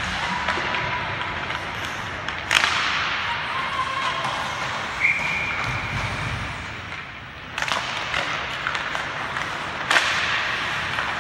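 Ice hockey play heard from the stands of an arena: a steady wash of skates on the ice and arena noise, broken by three sharp cracks of stick, puck and boards, about two and a half seconds in, near eight seconds and at ten seconds.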